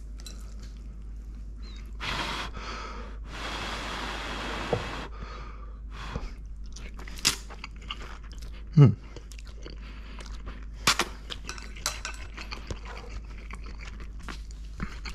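A person eating lo mein noodles with chopsticks: two hissing slurps early on, chewing, and chopsticks clicking against the bowl, with one louder low thump about midway.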